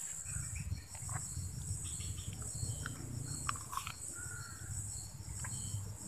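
Insects calling from the vegetation around a pond: a steady high buzz with a quick, evenly repeating chirp over it. A few short chirps and clicks come and go, over a low rumble.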